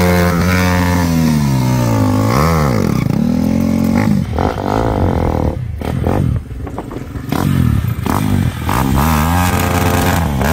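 Tuned Bajaj Pulsar NS200 single-cylinder engine, bored out to 240 cc, revving hard. The pitch rises and falls repeatedly, with an uneven, broken-up stretch midway.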